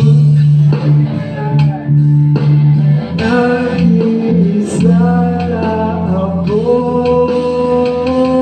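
A small band jamming live: strummed acoustic guitar, electric guitar and electric bass playing a song together, with a male voice singing held notes over them.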